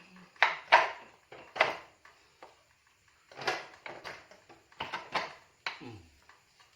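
Metal tools and motorcycle brake or wheel parts clinking and knocking together, about seven sharp clanks, some briefly ringing, with a short falling tone near the end.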